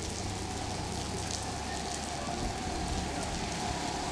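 Heavy rain falling steadily, a continuous hiss with a low rumble beneath it.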